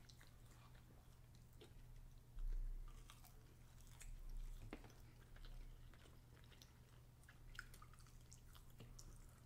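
Faint eating sounds: quiet chewing with small wet mouth clicks, and a couple of low dull thuds about two and a half and four seconds in.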